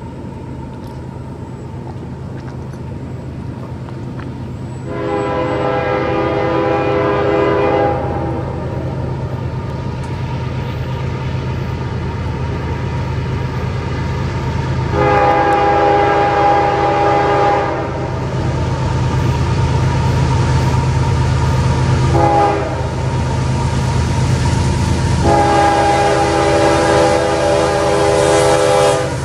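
Diesel freight locomotive sounding its horn in the grade-crossing pattern: two long blasts, a short one, then a last long blast, over the steady low rumble of the approaching train, which grows louder as it nears.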